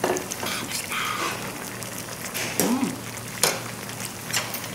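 A pot of dakbokkeumtang (spicy braised chicken stew) bubbling at a simmer on a tabletop gas burner, with a handful of sharp clinks of a spoon and ladle against the metal pot and bowl.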